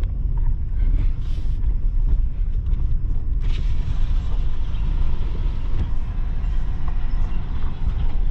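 A vehicle's engine running with a steady low rumble as it creeps along at low speed to line up. From about three and a half seconds in, a hiss joins it.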